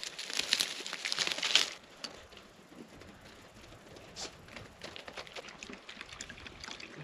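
Dry grass and straw crackling and rustling underfoot for about the first two seconds, then only faint scattered crackles.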